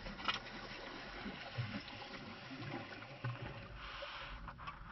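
Steady wash of water, with a sharp click or splash about a third of a second in and a couple more near the end.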